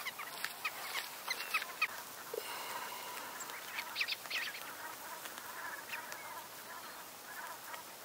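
Black-tailed godwit flock calling: a scatter of short, high calls, busiest in the first two seconds, with a few more about four and six seconds in.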